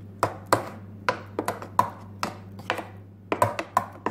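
A spoon stirring thick tomato pizza sauce in a glass bowl, clinking against the glass in irregular taps about three times a second.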